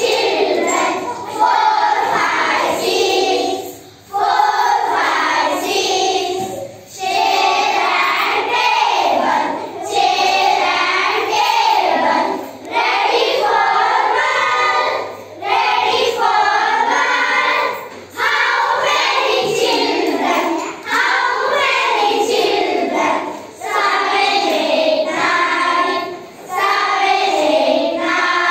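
A group of children singing an English action rhyme together in unison, phrase by phrase, with short breaks between lines.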